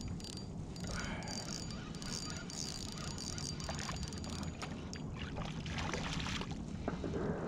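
Hooked red drum thrashing and splashing at the water's surface about five to six seconds in, over a steady low rumble.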